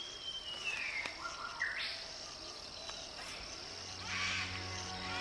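Insects droning steadily with a few whistled bird calls, one gliding down in pitch at the start. Soft music with low held notes comes in near the end.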